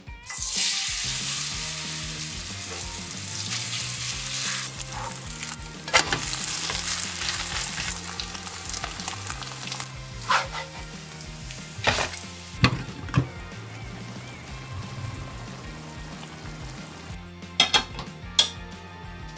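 Shredded potato and bacon batter sizzling loudly as it meets hot oil in a frying pan, starting suddenly just after the start and easing off in the second half. A few sharp clinks of a utensil on the pan come in the middle, over faint background music.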